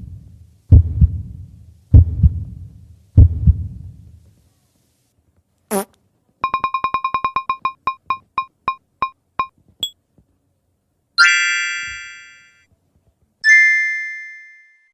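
A string of separate electronic sound effects: four low booms about a second apart, a click, a quick run of short high beeps that slows and stops, then two chime tones that fade away.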